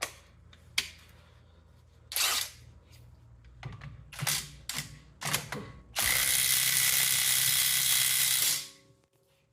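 Ratchet clicking and short noisy strokes as a bolt is run in, then a loud, steady hiss lasting about two and a half seconds that cuts off.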